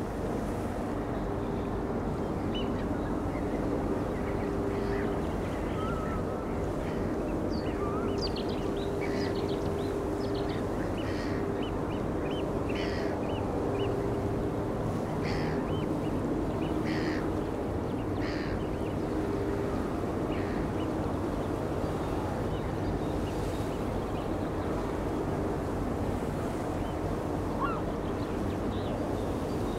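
A flock of birds giving many short, scattered calls, busiest from about three to twenty seconds in, over a steady low mechanical drone.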